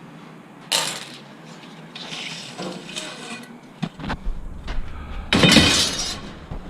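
Aluminum scrap being handled and pulled apart: irregular metallic clanks and rattles, with a sharp clatter under a second in and the loudest, longer scraping rattle around five to six seconds in.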